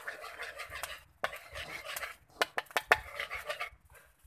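A metal spoon stirring and scraping sauce around the bottom of a metal wok, with sharp clinks of the spoon against the pan. The stirring pauses briefly about a second in, then resumes, and stops shortly before the end.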